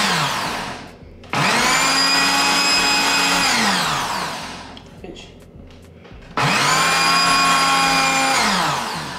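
Personal bullet-style blender pulsing a thick mix of herbs and oil for green seasoning. The motor whine cuts in suddenly, holds steady for about two and a half seconds, then spins down with falling pitch. One burst winds down just at the start, and two more follow, starting about a second in and about six seconds in.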